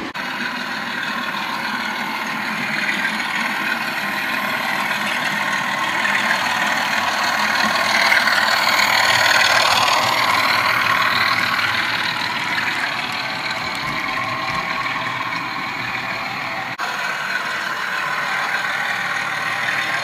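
Bachmann Class 25 model diesel locomotive's DCC sound decoder playing a diesel engine sound through the model's small speaker as it runs. It swells louder around the middle and eases back, with a sudden brief dip near the end.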